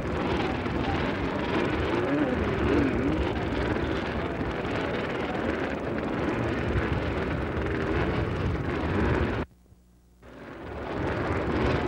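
A pack of motocross motorcycle engines running together, their pitch wavering up and down as the riders rev. About nine and a half seconds in, the sound cuts out for nearly a second, then fades back in.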